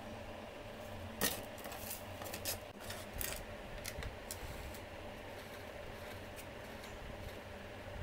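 Handling noise: a run of sharp clicks and light knocks of a steel rod and a stack of CDs against a plastic tub, the loudest about a second in, over a faint steady hum.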